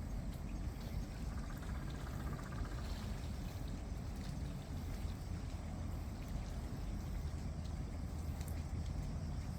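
Steady wash of rain and sea at a rainy shoreline, with a few faint ticks.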